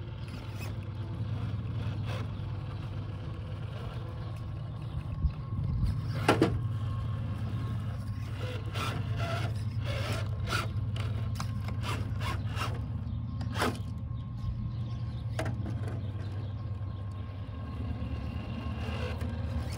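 Traxxas TRX4 RC rock crawler's electric motor and drivetrain running with a steady low hum as it crawls over rocks. Its tyres and chassis scrape and knock against the stones now and then, the loudest knocks about six seconds in.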